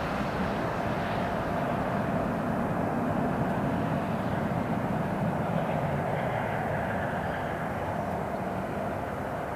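Airbus A320's twin turbofan engines at climb power as the airliner departs: a steady rumble with a held tone running through it, slowly fading as the aircraft climbs away.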